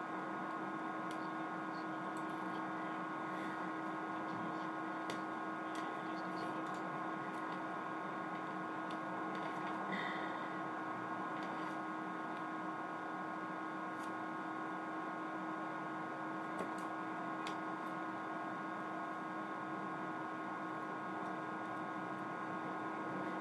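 Steady electrical hum made of several unchanging tones, one low and a cluster higher up, with a few faint small clicks scattered through it.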